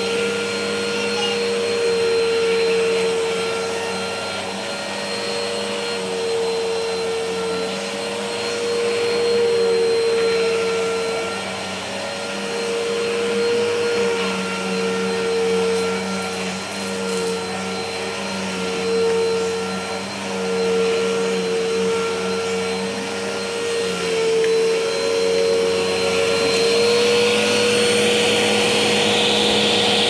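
Bissell Helix upright vacuum cleaner running on carpet: a continuous motor whine whose pitch wavers slightly, settling to an even pitch near the end.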